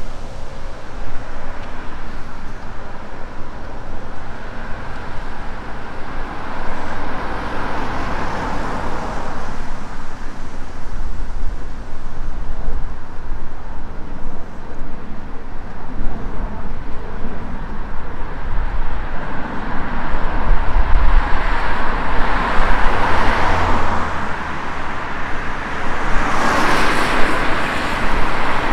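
Road traffic on a city street: cars passing, swelling a few times and loudest near the end, with wind rumbling on the microphone.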